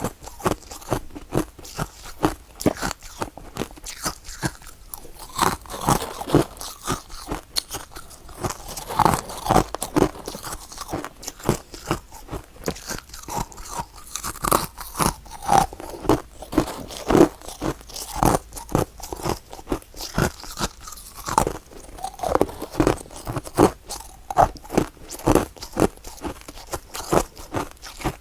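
Close-up crunching and chewing of powdery freezer frost: a dense, irregular run of soft crunches as the ice is bitten and chewed.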